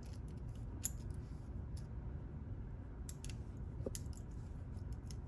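Scattered small metallic clicks and taps from handling a padlock and hand tools, over a steady low hum.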